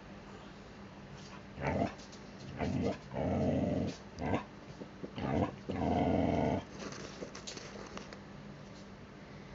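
A pet dog 'talking': a run of about six vocal sounds, short ones mixed with two longer drawn-out ones, starting about a second and a half in. It is the dog's attention-seeking vocalizing, asking its owner for a treat.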